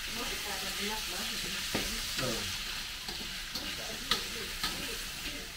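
Cubed food frying in oil in a wok, a steady sizzle, while a metal spatula stirs it and knocks against the pan with a few sharp clicks.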